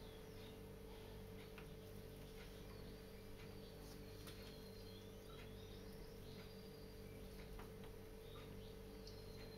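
Near silence: room tone with a steady electrical hum, and faint, short, high chirps scattered throughout.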